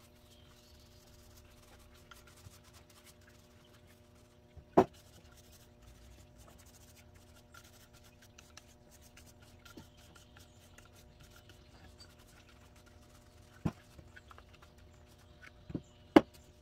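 Paintbrush rubbing and scratching over a wooden hive box, with sharp wooden knocks as the box or brush is put down on the table: one about five seconds in and three near the end. A steady low hum runs underneath.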